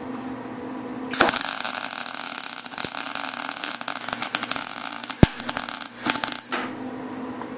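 Wire-feed (MIG) welding arc crackling on a cast iron piston. It starts about a second in and stops about a second before the end, with one sharp pop past the middle. The puddle is percolating, which the welder puts down to impurities in the old cast iron burning off.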